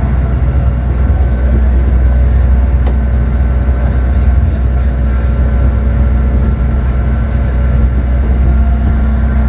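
Steady low rumble and drone of a slow-moving tourist train, heard from aboard a riding car.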